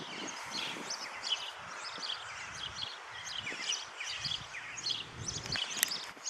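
Songbirds chirping and twittering, many short calls throughout. A low rumble runs from about four to five and a half seconds in.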